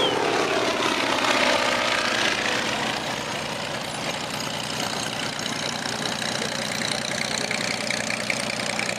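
Twin-engine Cessna's two piston engines running at low power as the plane taxis past, propellers turning. The engine pitch slides down over the first few seconds as it goes by, then settles into a steady drone.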